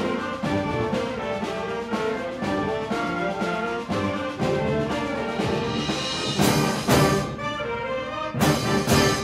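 Concert band playing a fast piece: brass chords over a driving percussion pulse of about two strokes a second. In the second half come two pairs of loud accented hits with cymbal crashes.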